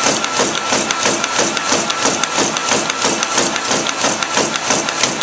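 Riso RZ990 digital duplicator printing at its top speed of 180 copies per minute: an even, fast mechanical rhythm as each sheet is fed through the print drum and ejected onto the receiving tray.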